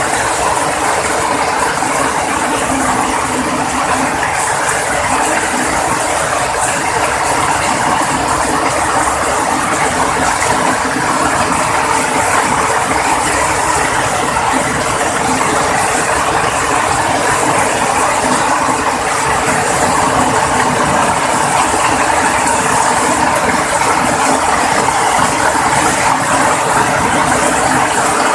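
Heavy downpour of rain falling steadily: a loud, dense, even hiss of countless drops striking hard surfaces.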